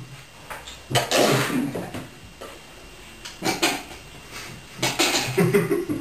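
People with mouths full of dry breadcrumbs coughing and spluttering in short breathy bursts: a strong one about a second in, a brief one a few seconds later, and a run of them near the end. No clean whistle comes through.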